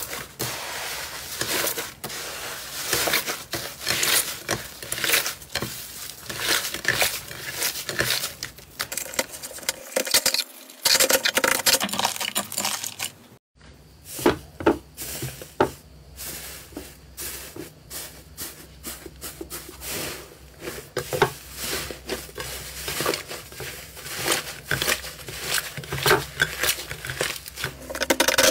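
Hands kneading and pulling apart crumbly 'tofu dregs' slime: a dense run of crackling, tearing and squishing sounds. It breaks off for a moment about halfway through, then carries on.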